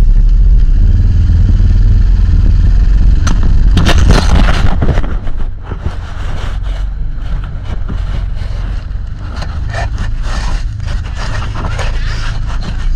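Off-road vehicle driving over rough ground: a loud, steady low rumble, with a burst of clattering and scraping about four seconds in, then a little quieter with continued rattling.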